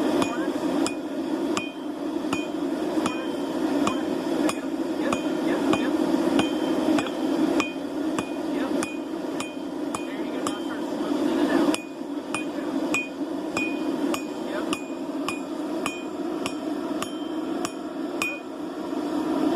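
Blacksmith's hammer striking metal on an anvil in a steady rhythm, about one and a half blows a second, each blow ringing briefly, with a short break about two-thirds of the way through. A steady low rushing noise runs underneath.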